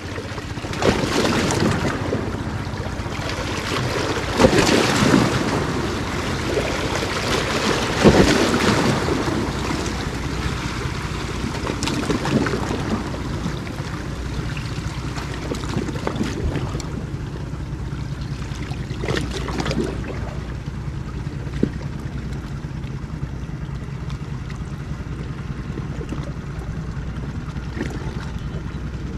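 Wind buffeting the microphone and small waves washing against breakwater rocks. The gusts are strongest over the first ten seconds or so, then settle into a steadier wash. A steady low hum runs underneath.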